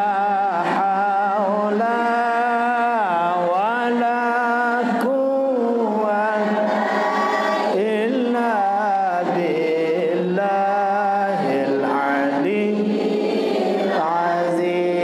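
A man's voice chanting a shalawat, the melodic Islamic praise of the Prophet Muhammad, in long held notes with ornamented turns, sung in phrases of a few seconds each.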